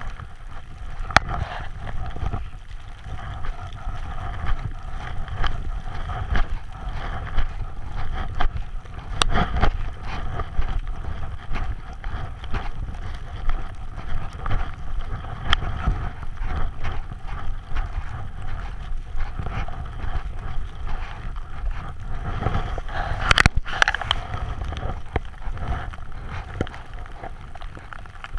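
Wind buffeting a helmet camera's microphone and snow rushing under the rider while descending through deep powder, with frequent small knocks from the camera and gear. About three-quarters of the way through there is a louder, brighter rush, like a burst of snow spray.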